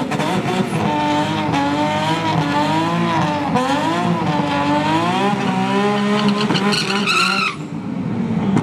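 Nissan 370Z drag car doing a burnout, its engine revving with the pitch wavering up and down as the rear tyres spin. Near the end the revs climb sharply, then the throttle is cut off suddenly.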